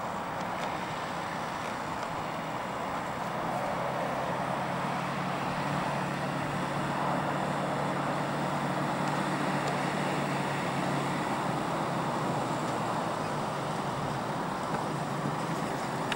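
A 4x4's engine running steadily as the vehicle drives on a steep dirt slope, growing a little louder about four seconds in.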